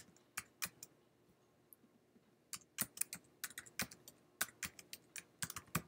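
Typing on a computer keyboard: a few keystrokes, a pause of about a second and a half, then a quicker run of keystrokes.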